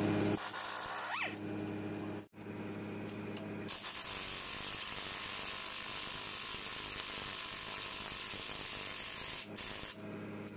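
Hand-held power tool running steadily for about six seconds on a bolt of the loader bucket, with a steady low engine hum before and after it.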